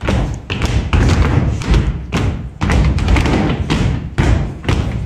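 A run of loud thumps, about two or three a second in an uneven rhythm.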